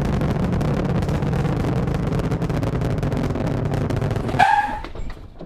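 Roar of a Saturn V rocket launch from the Apollo 11 broadcast audio: a steady, dense rumble with crackle. About four and a half seconds in it cuts away, with a short tone, and the level falls off.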